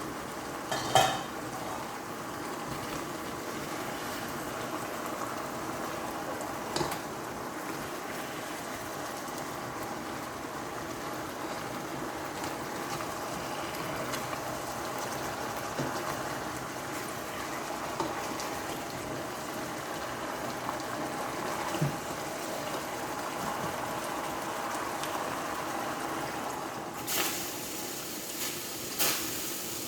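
Pot of chicken adobo boiling on the stove, a steady bubbling hiss, with a few sharp clinks of utensils or lid now and then, the loudest about a second in and two more near the end.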